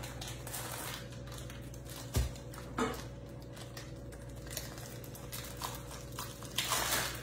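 A plastic package of sliced deli ham being picked at and pulled open, with small crinkles and clicks, a dull thump about two seconds in, and a louder crinkle of plastic near the end. A steady low hum runs underneath.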